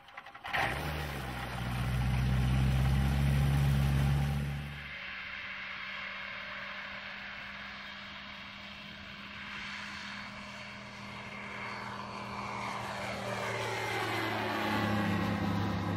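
Light aircraft's Rotax engine and three-blade constant-speed propeller running. It is loud and close for the first five seconds, then drops abruptly to a quieter, steady drone. The drone grows louder again toward the end, and its pitch falls as the plane passes by.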